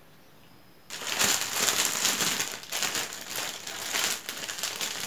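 Thin clear plastic bag crinkling loudly as it is handled and pulled open, starting suddenly about a second in and going on in dense, irregular crackles.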